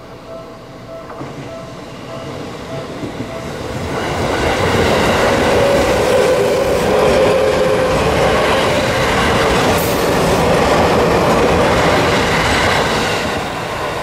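A Japanese level-crossing warning bell rings with a quick repeating chime. About four seconds in, it is drowned out by a Seibu 10000 series "New Red Arrow" limited express passing at speed, with a loud rush of wheels and running gear that eases off near the end.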